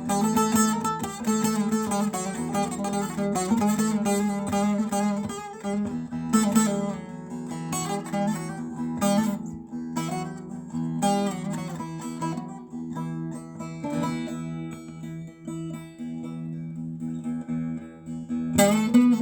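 Background music led by a plucked string instrument playing a melody, thinner in the middle and fuller again near the end.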